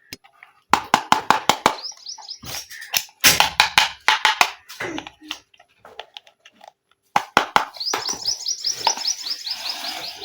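Hard plastic toy kitchen pieces being handled, with many quick clicks and taps. Twice, a run of rapid high chirping squeaks comes in: briefly about a second and a half in, and again for the last couple of seconds.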